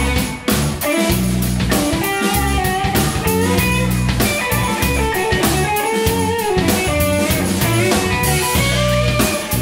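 A live band playing a jam: an electric guitar plays a melodic lead line over low sustained notes and a drum kit keeping a steady beat.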